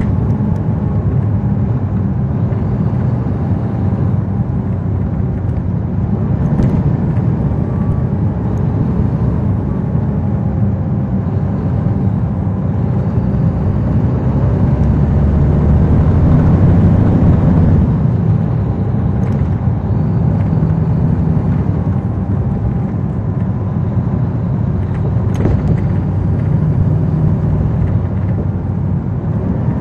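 Caterpillar C13 ACERT diesel engine of a NABI 40-SFW transit bus, heard from the rear seats, running with road noise. It grows louder for a few seconds around the middle, then eases back. A few faint clicks or rattles are scattered through it.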